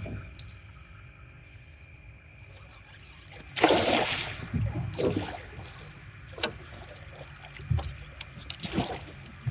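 Water splashing and sloshing beside the boat as a hooked flathead catfish thrashes at the surface near the end of the fight. The splashes come in several bursts, the loudest about three and a half seconds in.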